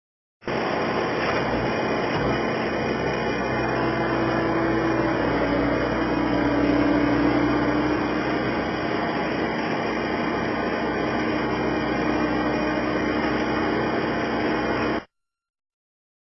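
Skid steer loader's engine running steadily, with a tone that rises a little in pitch midway; it starts and cuts off abruptly.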